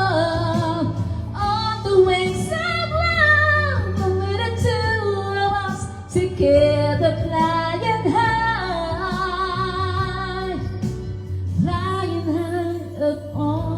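Female voice singing long melismatic runs with wavering vibrato over sustained low accompaniment, a ballad's closing ad-lib.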